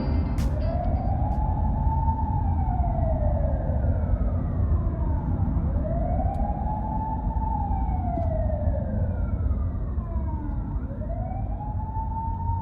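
A wailing siren, its pitch rising, holding and slowly falling in a cycle about every five seconds, three cycles in all, over a steady low rumble of traffic or engine noise.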